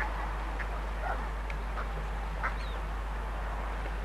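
Ducks quacking: a handful of short, separate calls scattered through, over a steady low hum.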